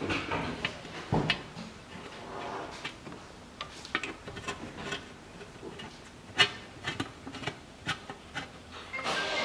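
Irregular metallic clicks and clinks of a small socket on an extension against the bolts of an automatic transmission oil pan as they are run in by hand, the sharpest click about six and a half seconds in.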